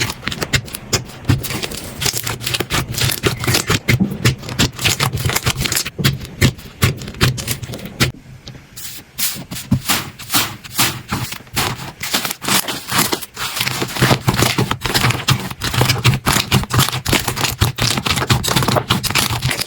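Slime being squeezed and poked by hand, giving a dense run of small clicks, crackles and pops, with a brief lull about eight seconds in.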